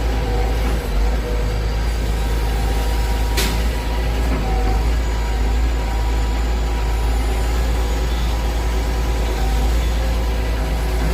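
Excavator's diesel engine running steadily with a deep drone, and a single sharp knock about three and a half seconds in.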